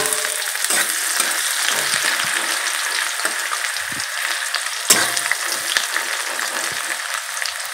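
Chopped onions sizzling in hot mustard oil in a metal kadai, stirred with a metal spatula that scrapes and taps the pan now and then, one sharper tap about five seconds in.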